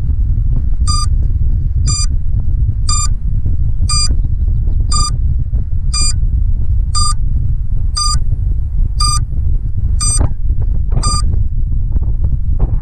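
FPV drone's lost-model buzzer beeping after signal loss: a short high beep about once a second, eleven times, over heavy wind buffeting on the camera's microphone.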